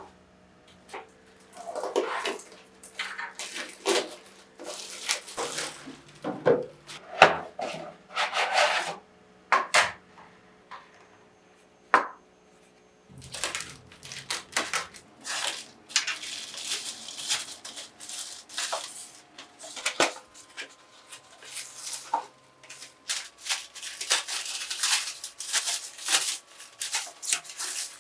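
Kitchen containers and dishes being handled: irregular clinks, knocks and rubbing, with a pause of a few seconds about halfway through.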